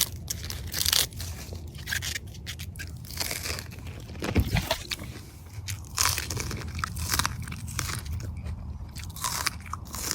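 Someone biting into and chewing raw sweet corn on the cob: crisp crunches of kernels at irregular intervals.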